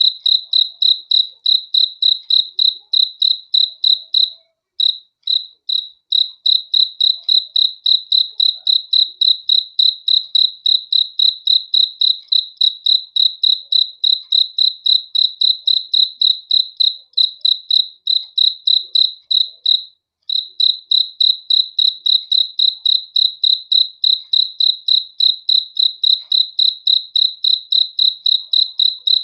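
A cricket chirping steadily, one high-pitched chirp about three times a second, breaking off briefly twice, about five seconds in and about twenty seconds in.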